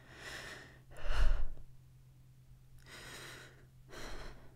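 A woman's close-miked breaths between whispered lines: four soft, airy breaths, the one about a second in the strongest, with a low puff of air on the microphone.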